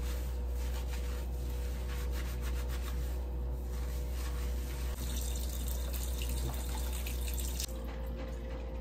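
Tap water running steadily into a sink while wet, shampooed hair is scrubbed by hand.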